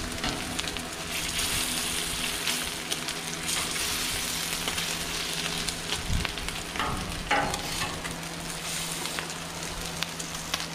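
Thick-cut bacon frying with a steady sizzle on a Camp Chef cast iron flat top griddle, the bacon grease seasoning the new griddle surface. A few short clacks of metal tongs turning the strips come a little past the middle.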